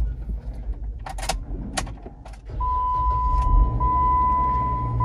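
Keys jingling and clicking in a Jeep Wrangler's ignition, then about two and a half seconds in the engine starts and runs with a low rumble. At the same time a steady high warning chime sounds, one tone broken about every second.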